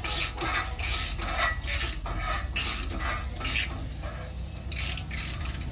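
Socket ratchet on a long extension working a bolt on the exhaust pipe's mounting to the engine, its pawl rasping in short repeated strokes, about two or three a second, as the bolt is loosened.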